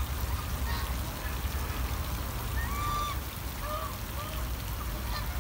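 Domestic geese on a pond honking: a string of short, nasal calls at irregular intervals, the longest and clearest about three seconds in, over a steady low rumble.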